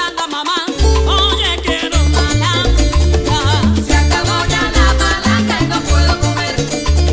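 Cuban son played by a small band: a woman singing over plucked baby bass notes, with congas and tres in the mix.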